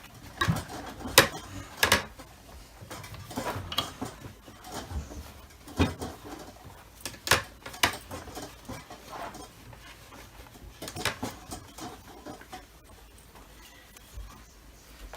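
Hands handling and wiping the plastic body of a Dyson DC25 vacuum: irregular sharp clicks and knocks of plastic parts, with stretches of scratchy rubbing.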